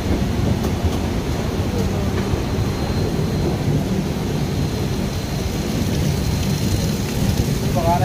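Passenger train running slowly through heavy rain: a steady low rumble mixed with the hiss of rain.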